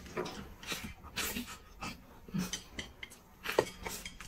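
Close-miked eating: a person chewing and swallowing mouthfuls of rice and chicken, with irregular short clicks of a utensil against the plate as the rice is shoveled in.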